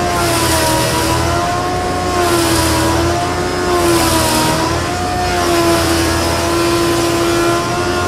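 A 16-inch jointer cutting a roughly 20-inch-wide walnut slab as it is pushed over the cutterhead. The motor's steady hum wavers and sags in pitch as the knives bite, with bursts of cutting hiss three times in the first half.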